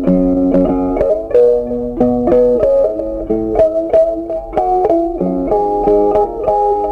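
Background music: plucked guitar playing a melody with chords, its notes picked in a steady rhythm.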